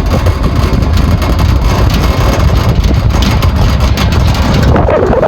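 Loud low rumble of a moving vehicle, with wind buffeting the microphone.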